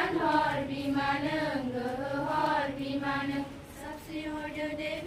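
Schoolchildren singing a prayer together in unison: a slow chant with long held notes that rise and fall gently.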